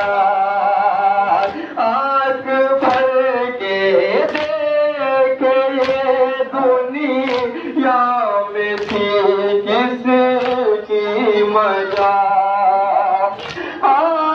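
A nauha, a Muharram lament, chanted by voices while mourners strike their chests in unison (matam), one sharp slap about every one and a half seconds.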